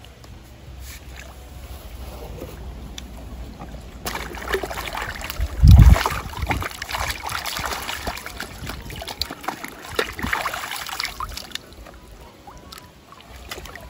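Shallow pond water splashing and sloshing as swim fins are worked on by hand in the water, starting about four seconds in and dying down near the end. A single heavy thump, the loudest sound, comes about six seconds in.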